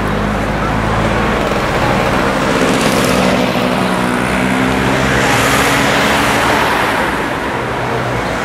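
Steady road traffic, with vehicles passing by about three and five and a half seconds in over a continuous low engine hum.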